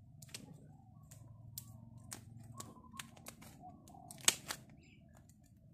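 Plastic lock clips being snapped onto a PVC pipe frame over clear plastic sheeting: a run of light clicks and plastic crinkling, with one sharp snap about four seconds in.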